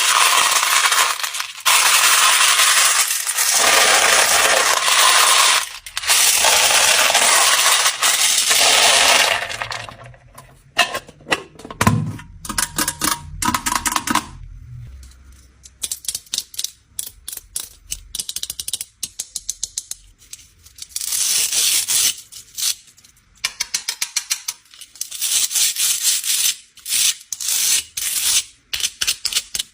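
Small hard candies clattering: about nine seconds of a continuous pouring rattle, then scattered sharp clicks and short rattling bursts as pieces drop and tumble.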